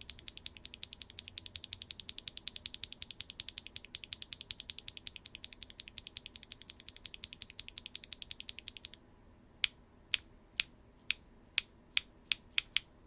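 WingTree YuYing linear mechanical keyboard switch (POM stem, PA66 housings, factory-lubed) being pressed rapidly, about eight clacks a second. In the last few seconds come about nine slower, sharper single presses. A high-pitched clack with some subtle scratch.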